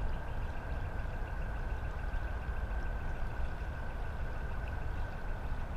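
Steady outdoor ambience beside a flowing creek: a low rumble and a soft hiss, with a faint thin whine held steady over it.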